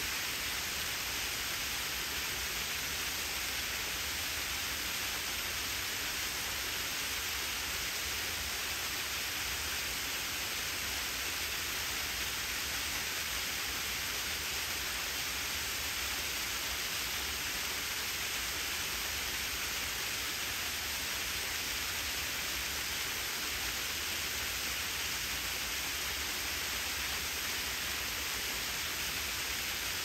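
A small terraced ribbon waterfall, about 10 m high, splashing down a rock face: a steady, even rush of falling water, brightest in the higher pitches, with a faint low rumble beneath.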